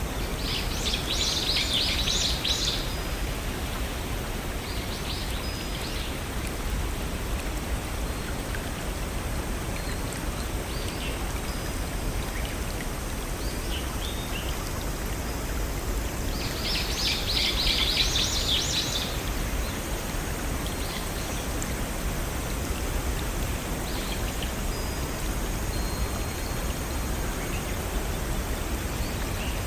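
Steady rushing of a brook and small waterfall. A songbird sings a rapid, trilling phrase about a second in and again midway, with a few fainter short calls in between.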